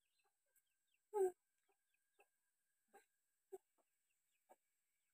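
A hen clucking: a few short, separate clucks, the loudest about a second in.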